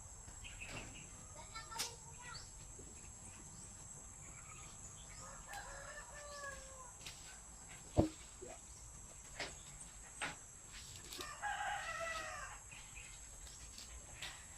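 Rooster crowing twice, about five and a half seconds in and again about eleven seconds in, with a few sharp knocks between, the loudest about eight seconds in.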